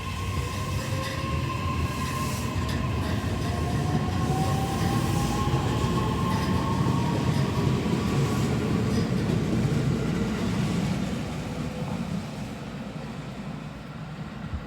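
JR E131-500 series electric train pulling away, its motor whine rising steadily in pitch as it accelerates over the rumble of wheels on rail; the sound swells, then fades after about eleven seconds as the train draws off.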